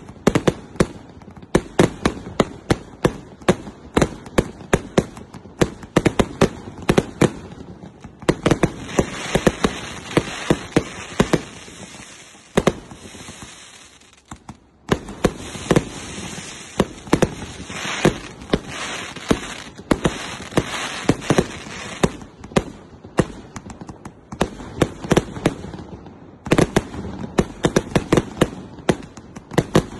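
Nephilim 200-shot firework cake firing shell after shell: a rapid run of sharp launch and burst cracks, several a second. It is overlaid in stretches by a continuous hiss between the shots, with a short lull near the middle.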